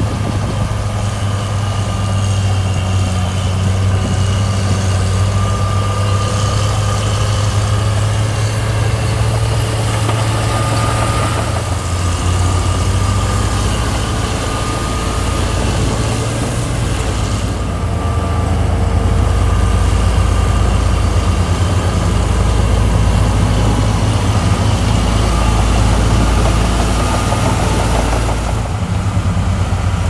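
Heavy diesel engine of road-building earthmoving machinery running steadily, with a low drone that grows somewhat louder in the second half.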